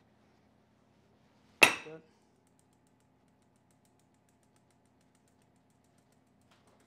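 A single sharp clink of a ceramic ramekin knocking against a plate about one and a half seconds in, with a brief ringing tail, as the lava cake is turned out. Then faint, light ticking of a spoon tapping a fine-mesh sieve to dust confectioners' sugar over the cake.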